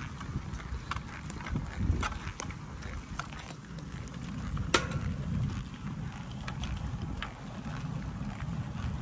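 Road bicycle climbing slowly on coarse asphalt: a steady low rumble of tyres and wind on the microphone, with scattered light ticks and one sharper click about five seconds in.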